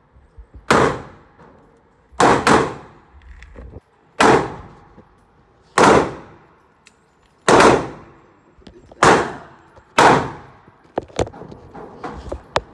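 Gunshots at a shooting range: a string of about eight sharp shots, roughly one every second and a half, each with a short echoing tail, and a few lighter clicks near the end.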